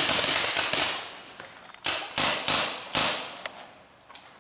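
Paintball markers firing: a quick volley of sharp shots in the first second, then single shots about every half second.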